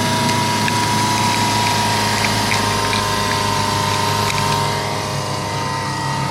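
2018 Jeep Compass engine idling steadily, running after the battery jump-start and replacement.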